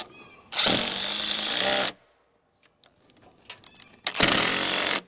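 A handheld power tool run in two short bursts, the first about a second and a half long and the second under a second, each starting and stopping abruptly.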